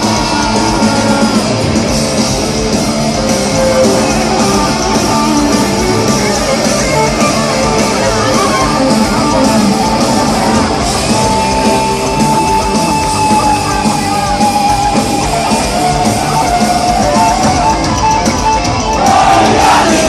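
Loud live rock music from a band playing over a concert sound system, with long held guitar-like notes.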